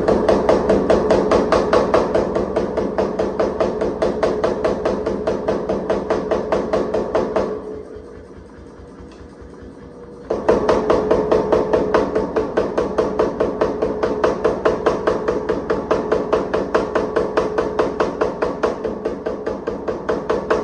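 Power hammer drawing out hot damascus steel: rapid, evenly spaced blows over a ringing tone. It pauses for about three seconds near the middle, leaving only the machine's motor running, then starts striking again.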